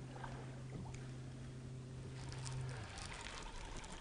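A small electric motor on a fishing boat hums steadily at a low pitch, then cuts off about three seconds in, over faint trickling water.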